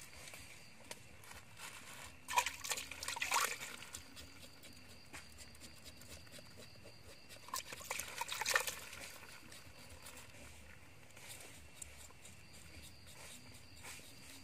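Water splashing and trickling in a plastic bucket as pieces of meat are dunked and rinsed by hand, in two short bouts about five seconds apart.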